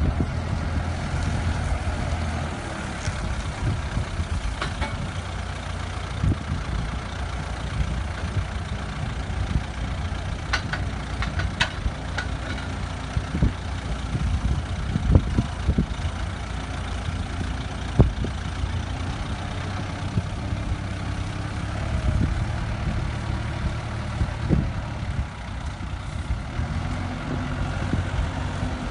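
Backhoe loader's diesel engine running steadily under varying load while it works a hydraulic bale clamp, with scattered sharp knocks and clunks from the clamp and loader arms handling a wrapped silage bale, the loudest about 18 seconds in.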